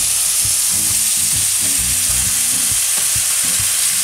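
Jerk-seasoned chicken sizzling steadily in a hot stainless steel sauté pan as chopped tomatoes, peppers, onion and garlic are pushed in from a plastic cutting board, with light knocks scattered through the sizzle.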